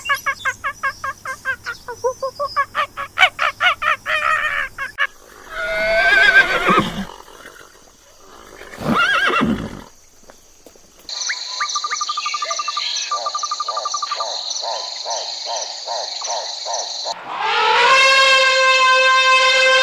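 Several different animal calls one after another: a fast run of repeated pitched calls for the first few seconds, two short calls, then a steady high whine with quick pulses under it, and a loud call with many overtones near the end.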